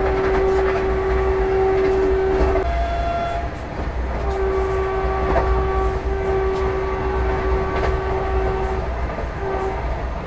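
Train horn blowing: a blast of about three seconds, a brief higher note, then a longer blast of about four and a half seconds and a short toot near the end. Underneath is the steady low rumble of the Vande Bharat Express as it runs out of the station.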